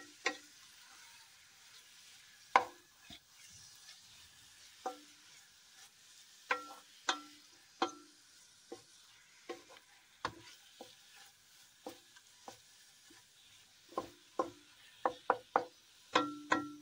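A wooden spatula stirs spinach frying in oil in an aluminium pot. It knocks and scrapes against the pot at irregular moments, and each knock leaves a brief metallic ring. A quick run of knocks comes near the end, over a faint steady sizzle.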